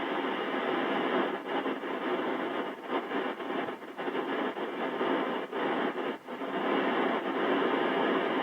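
Amateur radio receiver's FM hiss on the ISS downlink while no voice is being sent, with the noise breaking up in quick flutters and dropouts through the middle.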